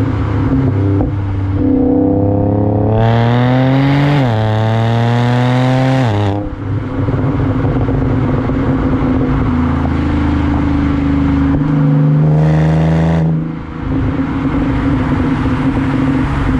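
Supercharged 3.0-litre V6 of a stage-2-tuned Audi S4, heard at the tailpipes through a muffler-delete exhaust under hard acceleration. The note climbs, drops at an upshift about four seconds in, climbs again and falls away about six seconds in, then cruises steadily before another short climb and lift-off near the end.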